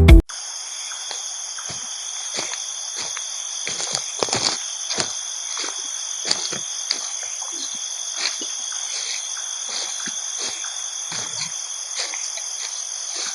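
Chorus of forest insects droning steadily in several high, even tones. Scattered short knocks and rustles sound beneath it.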